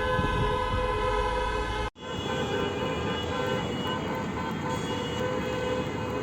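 Many car horns sounding at once and held, a chorus of overlapping steady tones over traffic noise: drivers honking en masse in protest. An abrupt cut about two seconds in leads to another stretch of the same massed honking.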